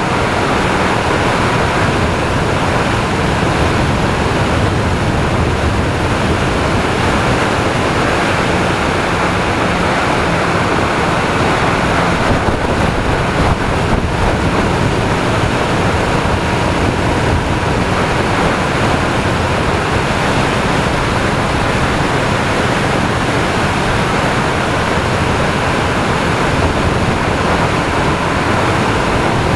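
Steady, loud rush of wind over the microphone of an action camera mounted low on a moving motorcycle at road speed, with the motorcycle's engine and tyre noise underneath.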